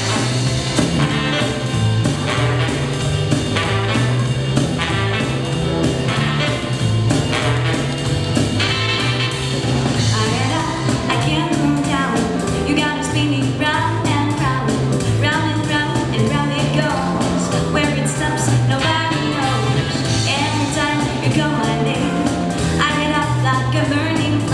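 Upbeat song with singing over a stepping bass line and a steady beat; the bass comes in right at the start.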